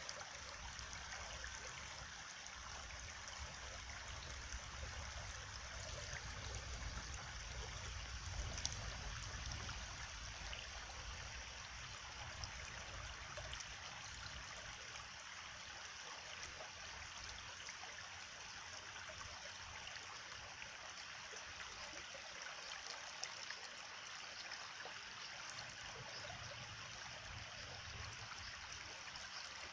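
Steady flowing stream, water trickling and babbling without a break, with a faint low rumble underneath.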